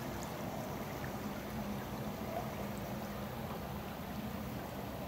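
Steady rush of river current running over shallow rocks, with a faint low hum under it.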